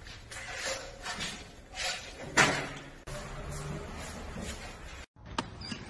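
Skateboard rolling and knocking on a concrete floor under a dog standing on it: a string of short scraping knocks, the loudest about two and a half seconds in.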